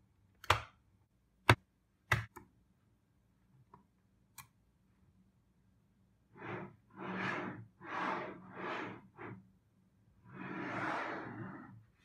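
Small magnetic balls snapping together with sharp clicks, about six in the first half, followed by five longer rustling swishes, the last the longest.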